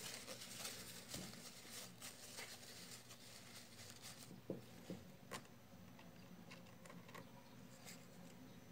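Faint handling noise of small fishing-reel parts: light rustling and clicking, with a few sharper clicks about halfway through.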